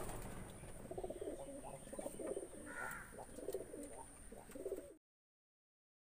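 Domestic pigeons cooing: a run of low, throaty coos, with a few faint clicks among them. The sound cuts off abruptly about five seconds in.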